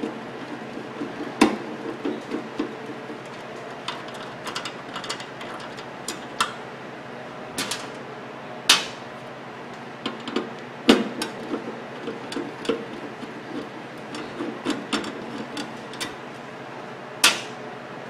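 Hand screwdriver backing screws out of a microwave oven's sheet-metal chassis: irregular metallic clicks, ticks and scrapes, with a few sharper clacks about four times. A steady low hum runs underneath.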